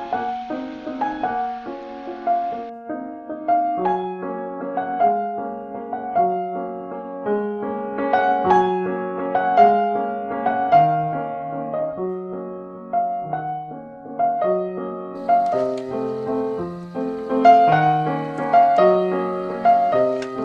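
Solo piano music: a steady flow of melody notes over chords.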